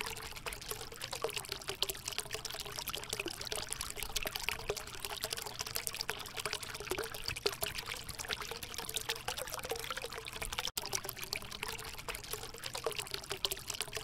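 Water fountain trickling: a thin stream of water falling and splashing steadily into a pool, with a momentary break a little past ten seconds in.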